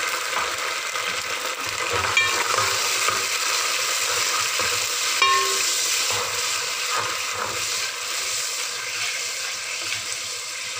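Lightly browned sliced onions sizzling in hot oil, with a little water just added, in an aluminium pot while a spatula stirs them. There are two sharp knocks of the spatula against the pot, about two and five seconds in.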